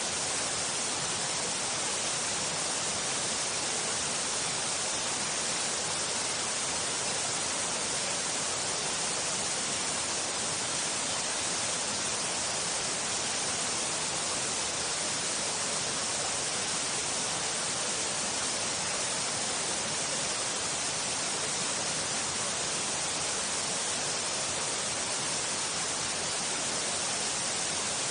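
Waterfall: a steady, unbroken rush of falling water, hiss-like and even throughout.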